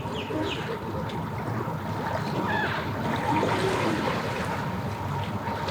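Boat's outboard motor held at raised throttle, 'goosing it', with water churning, as it tries to drive the boat off its trailer; the boat has not yet come free.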